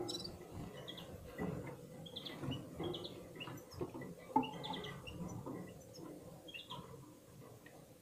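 Caged red-fronted serins (Serinus pusillus) giving short, scattered chirps and twitters, with faint patter and shuffling of the birds moving about the cage.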